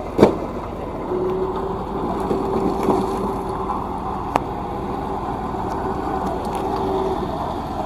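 Tandem road roller's engine running steadily, with a steady tone that comes in about a second in and stops near the end. A loud knock just after the start and a single sharp click around the middle.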